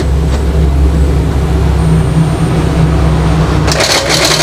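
Steady low rumble of road traffic, then about three and a half seconds in an Epson L3210 inkjet printer's paper-feed mechanism sets up a rapid, harsh crackling rattle as it starts a copy. This is the abnormal 'tretek' noise of a mechanical (hardware) fault, with the printer unable to pull the paper in.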